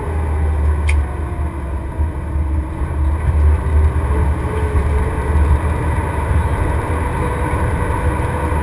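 Fire engine's diesel engine running, a steady heavy low rumble, with a single short click about a second in.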